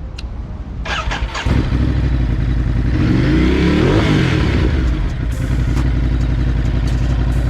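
Ducati Multistrada 950's V-twin idling, revved up once and back down about three seconds in, then settling back to idle. Its catalytic converter is removed, with a LeoVince de-cat pipe fitted.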